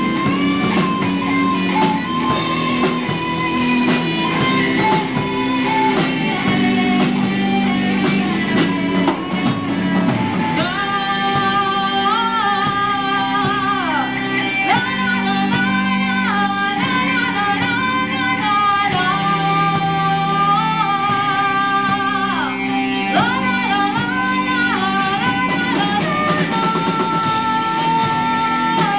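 Live rock band playing: electric guitars and drum kit, with a woman singing from about ten seconds in.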